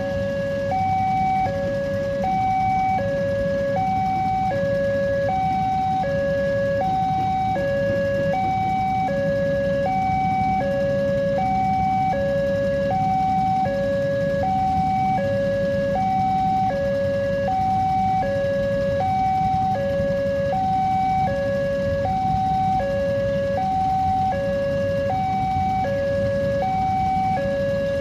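Railway level crossing's electronic warning alarm sounding its steady two-tone pattern, a higher tone then a lower one, about one pair every two seconds, the signal that a train is approaching. The low hum of waiting road traffic runs underneath.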